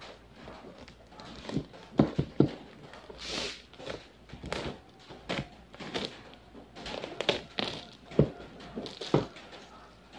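Clear plastic packaging crinkling and rustling in irregular bursts as headphones in a plastic bag are pulled out of their cardboard box. Several dull knocks from handling the box.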